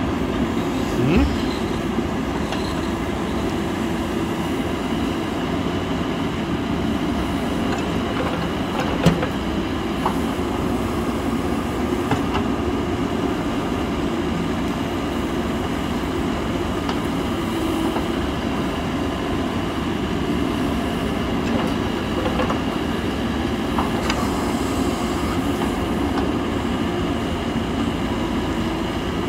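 Diesel engine of a Mahindra EarthMaster SX backhoe loader running steadily under load while the backhoe digs soil, with a few sharp clanks from the arm and bucket, the loudest about nine seconds in.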